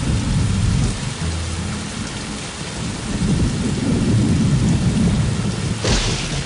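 Thunderstorm sound effect: steady heavy rain with low rolling thunder, and a sharp crack about six seconds in.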